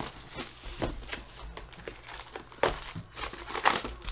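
Trading card box and foil card packs being handled and opened: crinkling foil wrappers and rubbing cardboard in irregular rustles, loudest about two and a half and three and a half seconds in.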